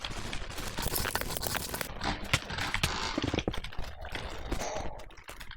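Block clutch clips being handled and clicked: a busy run of sharp clicks with scraping and rustling in between.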